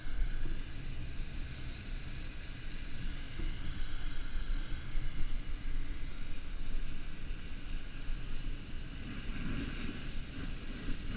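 Wind buffeting the microphone in a steady low rumble, over a continuous hiss of fire-hose spray from crews knocking down a fuel-pit fire.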